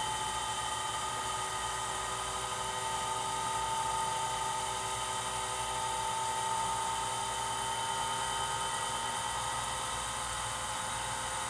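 Vintage watchmaker's lathe and its belt-driven vintage electric motor running steadily, a quiet, even whine with several held tones.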